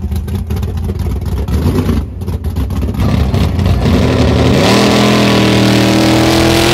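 Mud drag race truck's engine rumbling low, then launching hard: about four and a half seconds in the revs climb steeply and hold at high rpm as the truck runs down the dirt track at full throttle.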